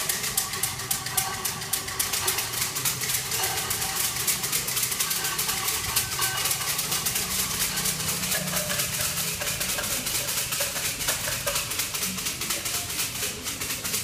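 Steady, dense rattling of wooden fortune sticks (kau cim) shaken in their cups by worshippers, with faint murmuring voices underneath.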